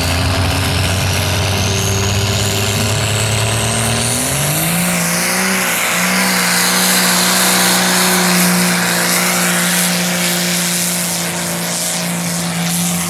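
Diesel engine of a mud-bog truck with a straight exhaust stack, run hard through a mud pit. The engine note holds steady, then climbs about four seconds in and stays at high revs, with a high whine rising in pitch over the first few seconds.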